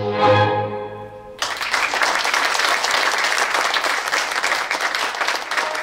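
Recorded music ends on a held, fading final note. About a second and a half in, audience applause starts abruptly and continues steadily.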